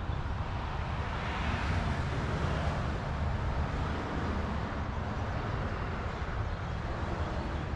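Steady outdoor background noise: a low, flickering rumble under an even hiss, with no distinct events.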